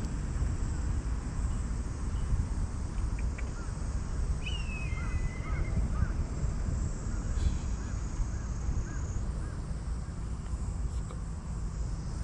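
Outdoor ambience: a steady low rumble under a constant high insect drone, with faint short bird calls and one falling chirp in the middle.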